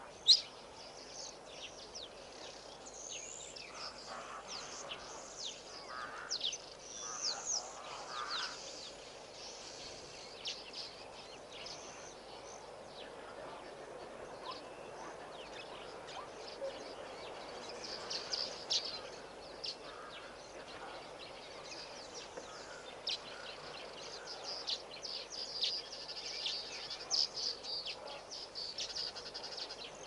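Small birds chirping and calling outdoors: many short high chirps, busier in the second half, over a faint steady hiss of open country. A single sharp, loud sound comes just after the start.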